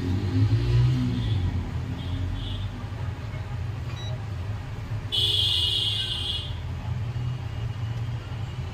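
A digital multimeter's buzzer gives one high-pitched beep about five seconds in, lasting about a second and a half, as the meter is being switched and probed on a laptop motherboard. A steady low rumble runs underneath.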